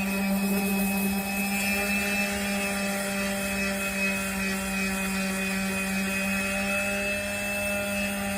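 Electric power sander running steadily with 80-grit abrasive, a constant motor hum with a rough sanding hiss over it.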